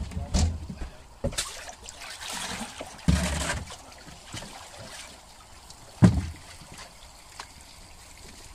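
Water splashing and sloshing in a fish holding tank as a plastic bin is worked in it, with several knocks and thumps, the loudest about three and six seconds in.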